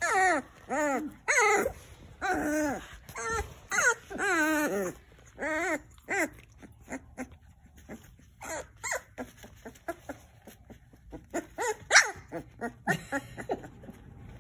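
Young puppies whimpering and crying: a rapid string of high, wavering whines, each rising and falling in pitch, for about six seconds, then scattered short clicks with a couple more cries near the end.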